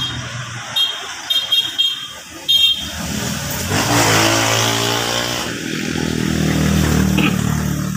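A few short metallic clinks in the first seconds, then a passing motor vehicle's engine swelling up, its pitch falling steadily as it goes by.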